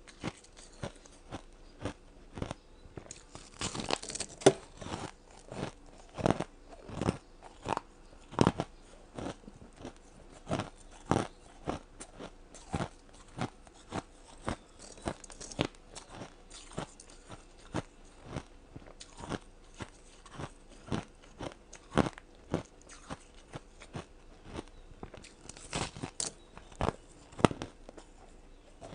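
A person biting and chewing ice: sharp, irregular crunches about one to two a second, with quicker runs of crunching about four seconds in and again near the end.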